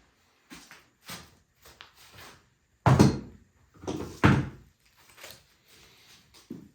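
Series of hand-tool shaving strokes taking wood off an axe handle blank, about nine short scraping strokes, two of them heavy knocks about three and four seconds in.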